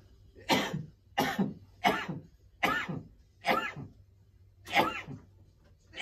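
A person coughing repeatedly: six short, sharp coughs about a second apart.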